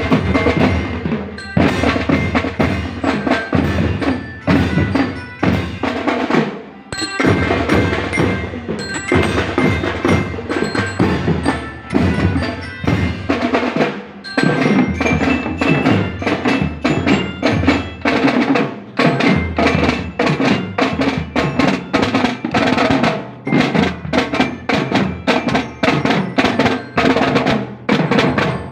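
Percussion music: a steady run of quick strikes mixed with ringing pitched mallet-like tones.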